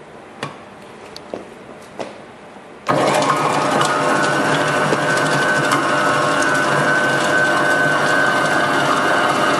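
A few light clicks as the lid's locking bar is set on the bowl. About three seconds in, the QS-9J vegetable chopper's electric motor switches on suddenly and runs steadily, its blades chopping carrots in the bowl, with a steady high tone over a crackly rush.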